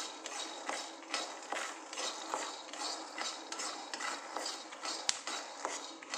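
Peanuts dry-roasting in a heavy kadai, stirred with a spoon: irregular clinks and scrapes of the spoon against the pan and the nuts rattling, a few a second. The skins are starting to crackle as the nuts near the end of roasting.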